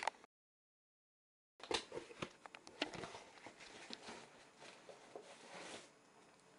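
Cardboard box and packing being handled: rustling with many small knocks and clicks, starting about a second and a half in after a dead silence.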